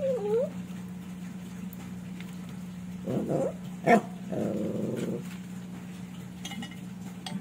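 A dog whining and growling in short bouts: a whine that rises and falls at the start, then growls about three and about four and a half seconds in, with a sharp click between them.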